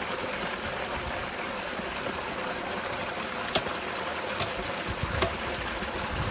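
Steady rushing noise with a few light knocks about halfway through and again near the end, as a wooden-handled hand tool works the dry ground.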